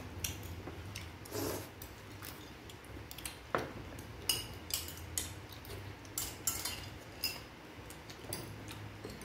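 Metal spoons clinking and scraping against ceramic bowls while people eat, with short irregular clinks about once or twice a second.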